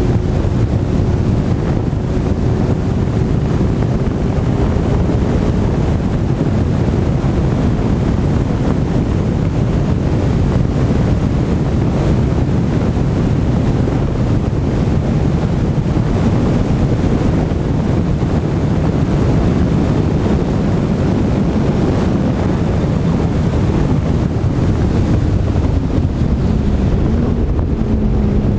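Heavy wind buffeting on the microphone of a GoPro mounted on a McLaren 12C at track speed, largely covering the car's twin-turbo V8. The engine note is heard faintly rising in the first few seconds, then falling in pitch over the last few seconds as the car slows.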